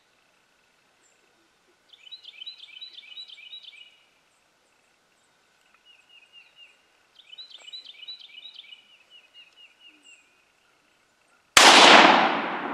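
A bird sings two rapid runs of repeated high notes over quiet outdoor background, then a single gunshot cracks out near the end and rolls away in a long echoing decay: a shot fired at feral hogs lying at a feeder.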